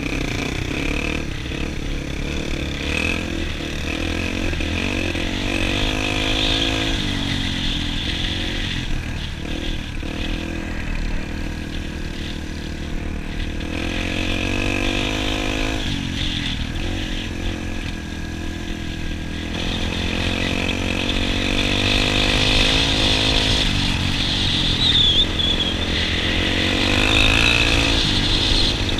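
Dirt bike engine running under way, revving up and down so that its pitch rises and falls several times, heard close up from the rider's own bike.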